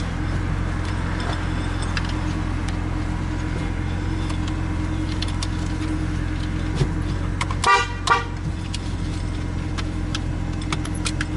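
BMW E36 M3 car horn sounding loud and steady without letup, stuck on; the installer suspects a bare horn wire touching somewhere behind the steering wheel. It breaks briefly near eight seconds in.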